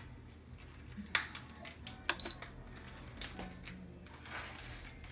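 Instant Pot control panel: a sharp knock about a second in, then a short high electronic beep about two seconds in as the Sauté button is pressed and the cooker switches to sauté mode.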